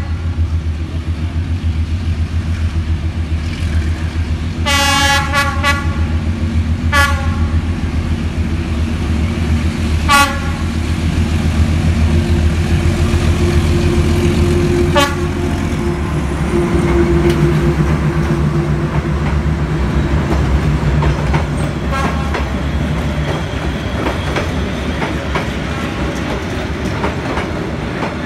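Czech-built D12E diesel locomotive's engine running as it hauls a passenger train slowly past, with a cluster of short horn toots about five seconds in and single toots a few more times. Once the locomotive has passed, the carriages' wheels clack over the rail joints.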